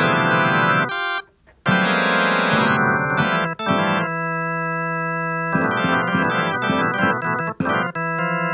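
Organ-like keyboard music: chords played in short phrases, a brief pause about a second in, then long held chords.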